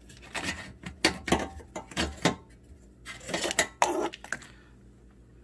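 Plastic wiring clips and the connector on a car's windshield wiper motor clicking and rattling as they are unclipped and pulled free by hand: a string of sharp clicks and clatters that stops about four and a half seconds in.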